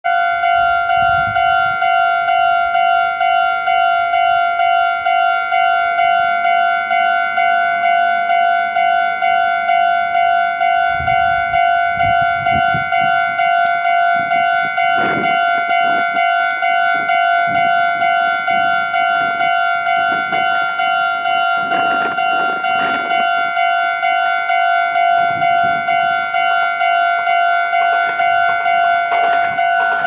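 Japanese railway level-crossing warning bell ringing from the loudspeaker on the crossing post, a steady high ding repeating about twice a second, signalling that a train is approaching.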